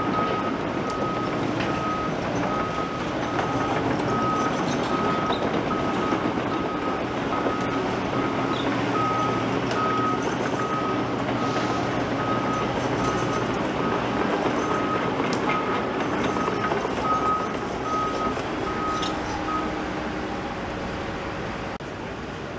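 A construction machine's reversing alarm beeps steadily, a little over once a second, over the rumble of a working diesel engine. The beeping stops near the end, leaving the engine noise.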